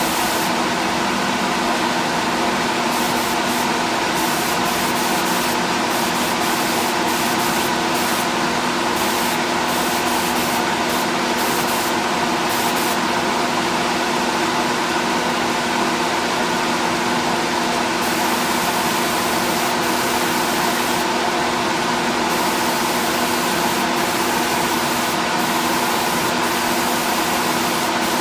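Air spray gun hissing steadily as a second coat of single-stage urethane paint is sprayed, the hiss dropping out briefly now and then between passes. A steady hum runs underneath.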